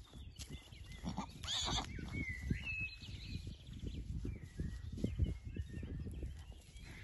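Horses in a grass field, a foal running and a mare grazing close by: irregular low thuds and rustle, with one short, loud breathy burst about a second and a half in. Thin gliding bird calls follow just after it.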